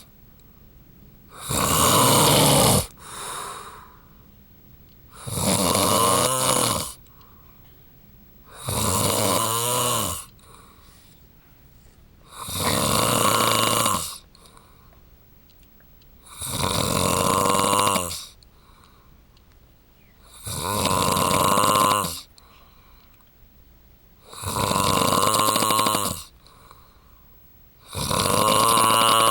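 A man snoring in his sleep: eight long, rattling snores at a steady rhythm of about one every four seconds, with a short, fainter one right after the first.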